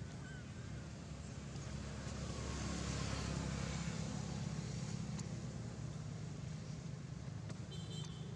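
Motor traffic: a steady engine hum with a swell of road noise about three seconds in.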